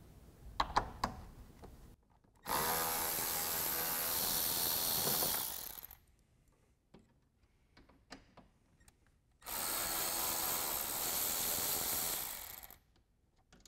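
Cordless electric ratchet with a 10 mm socket running twice, each run about three seconds, as it backs out the headlight's mounting bolts. A few light clicks come first, under a second in.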